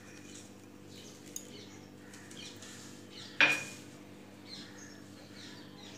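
A single sharp clink of a spoon against the mixing bowl, with a short ring, a little past halfway. A small click comes earlier, over a faint steady hum.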